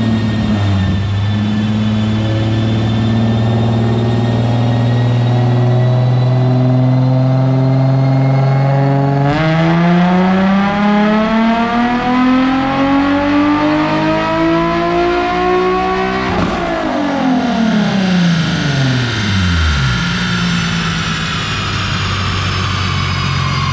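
Infiniti G35 sedan's 3.5-litre VQ35HR V6, running through a full aftermarket catback exhaust on a chassis dyno. It holds a steady speed for about nine seconds, then goes into one full-throttle pull that rises in pitch for about seven seconds. It then lifts off and falls in pitch for a few seconds before settling back to steady running: a dyno tuning pull.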